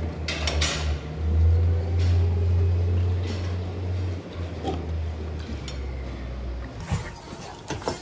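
A hand drench pump being worked up and down in a plastic bucket, pushing liquid through a hose into a cow's mouth: scattered clinks and liquid sounds over a steady low hum that fades near the end.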